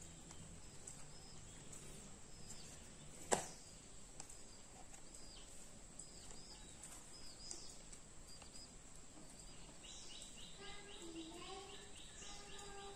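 Faint ambience of birds chirping and, from about ten seconds in, an insect's rapid trill. One sharp click about three seconds in, from hands handling a 2.5-inch SATA SSD at a laptop's drive bay.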